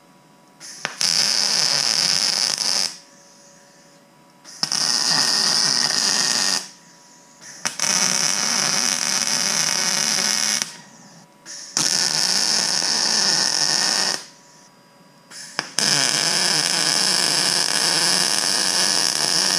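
Weldpro 155GD MIG welder's arc crackling on square steel tubing, in five separate welds of two to four seconds each with short pauses between.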